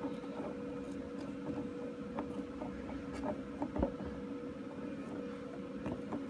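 Small plastic toy figures tapping and clicking now and then as they are handled and set down, the clearest click a little under four seconds in, over a steady low background hum.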